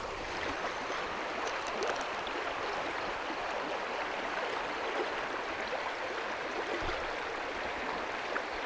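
River water running fast over shallow riffles: a steady rushing hiss.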